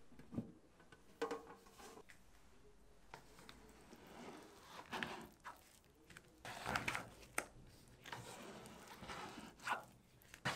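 Kitchen handling noises: irregular rustling and crinkling, with a few short light knocks.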